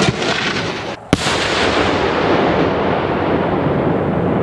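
Maltese beraq aerial firework shells going off: one sharp bang about a second in, then a loud, dense crackle of many rapid reports that keeps going without a break.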